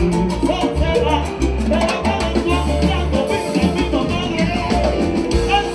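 Cuban timba band playing live: lead vocals over a steady bass line, dense percussion and horns.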